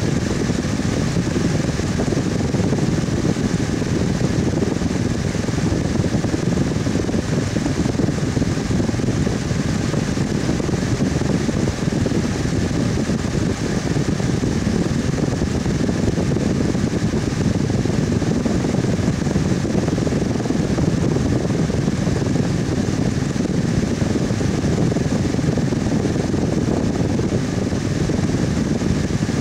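Electric fan running steadily: an even rushing whoosh, heaviest in the low range, that holds without change.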